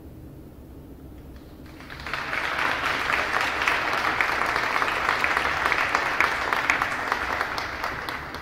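Audience applauding: a crowd's clapping swells in about two seconds in, holds steady, and tapers off near the end.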